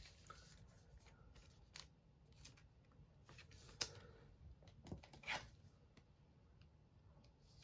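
Faint handling sounds of a trading card being slid into a thin plastic penny sleeve: a few brief, soft rustles and scrapes over near silence.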